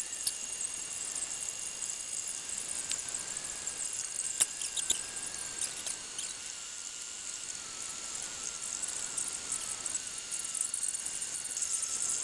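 MakerBot Replicator 2 3D printer running mid-print: a thin machine whine that wavers and drifts slightly in pitch as the carriage moves, over a steady high hiss, with a few short clicks about four and a half seconds in.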